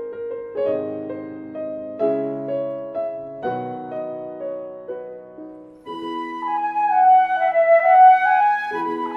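Piano music with slow struck notes for about six seconds, then a concert flute melody comes in, louder, over held lower notes.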